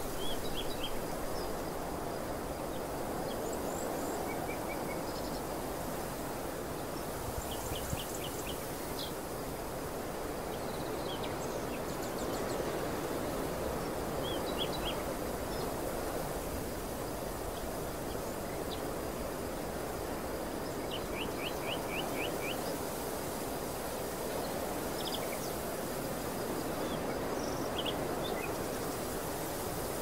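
Steady outdoor rushing noise, like wind over an open field, with small birds giving short chirps and quick trills of rapidly repeated notes every few seconds.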